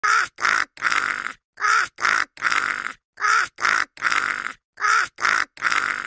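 Cartoon crow laugh sound effect: cawing calls in a repeating pattern of two short caws and one longer one, about every one and a half seconds, the pattern coming round four times.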